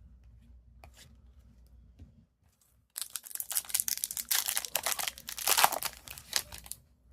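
A hockey card pack wrapper being torn open and crinkled: a dense crackling that starts about three seconds in and lasts nearly four seconds, after a few soft clicks of cards being handled.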